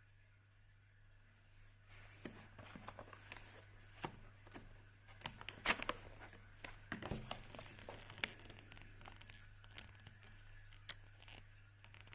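Plastic packaging crinkling and rustling as it is handled, with scattered sharp clicks and taps, starting about two seconds in; a low steady hum lies underneath.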